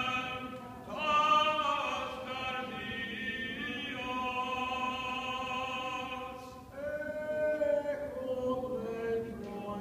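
Greek Orthodox Byzantine chant: a melody sung in long held notes that shift pitch every second or few, over a steady lower sustained tone.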